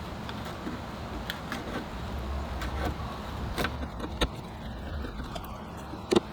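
Scattered light clicks and knocks over a steady low rumble, with two sharper knocks about four and six seconds in.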